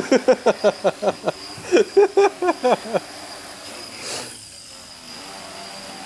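Small homemade quadcopter hovering, its motors and propellers giving a steady high whine over an airy hiss. Over it, in the first half, a person laughs in two quick runs of short bursts, each falling in pitch.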